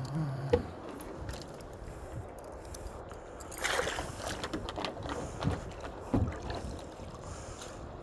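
Water sloshing against the side of a kayak, with a splash about four seconds in and a few light knocks after it. The sounds fit a chain stringer of walleye being lowered over the side into the river.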